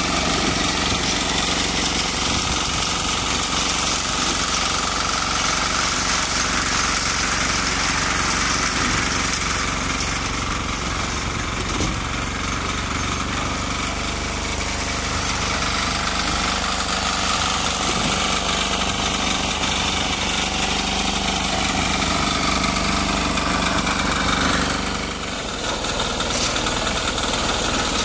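Small engine of a portable drum concrete mixer running steadily under load, dipping briefly near the end.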